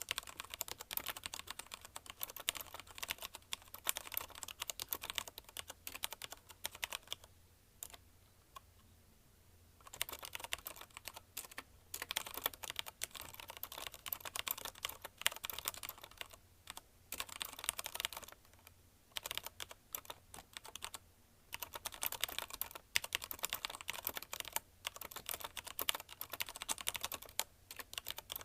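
Fast continuous typing on a CM Storm Quick Fire TK mechanical keyboard with linear Cherry MX Red switches: dense runs of keystrokes, with a pause of about two seconds near a third of the way in and a shorter one about two-thirds in.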